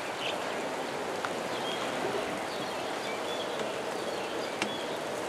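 Steady rushing outdoor background noise with faint short chirps and one sharp click about four and a half seconds in.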